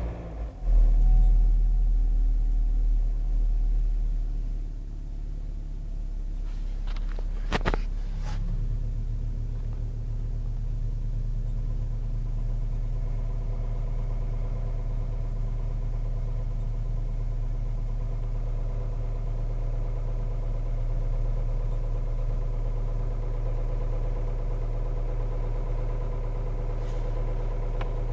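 Chevrolet Cruze 1.8 four-cylinder petrol engine idling just after a cold start, at a higher fast idle for the first few seconds and then settling to a steady idle, with two brief sharp noises about seven to eight seconds in. The owner hears an extraneous knock from the engine on cold start, with the oil pressure warning lamp lighting; the cause turned out to be engine oil of the wrong viscosity.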